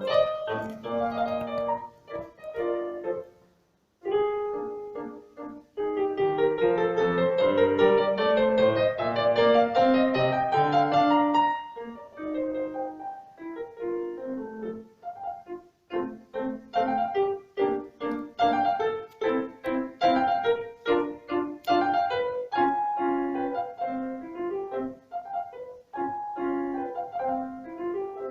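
Piano music, with brief pauses about four seconds in and again about sixteen seconds in.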